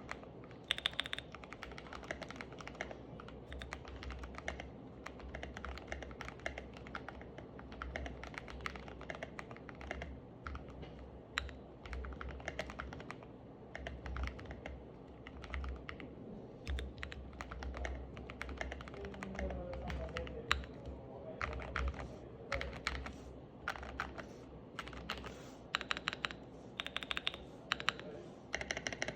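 Typing on a mechanical keyboard fitted with Maxkey SA-profile keycaps: a steady stream of irregular key clacks, with some faster runs of keystrokes.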